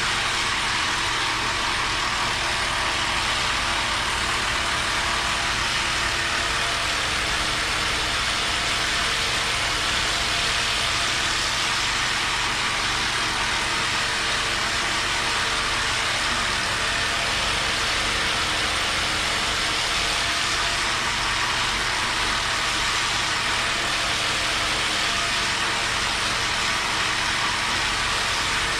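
Handheld electric percussion massager running steadily on the shoulder muscles: a constant motor hum with rapid low pulsing.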